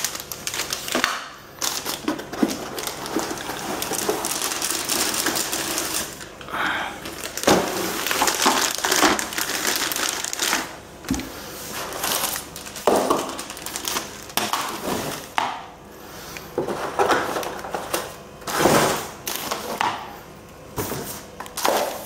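Plastic packaging bags crinkling and rustling as they are handled, with cardboard packaging shifted and knocked, in irregular bursts with short pauses.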